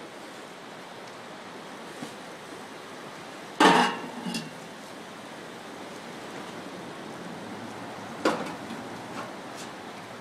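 Hot stones of an umu earth oven knocking sharply twice, a few seconds apart, with a few lighter clicks after each, while banana leaves are laid over them. A steady hiss continues underneath.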